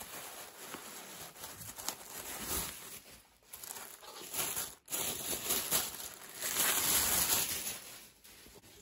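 Bubble wrap and then tissue paper crinkling and rustling as a packed box tray is unwrapped by hand. The crinkling comes in uneven spells, loudest about seven seconds in.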